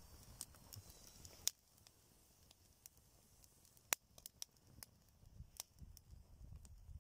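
Twig fire crackling faintly in a folding stainless-steel box stove, with scattered sharp pops. The loudest pops come about a second and a half in and about four seconds in.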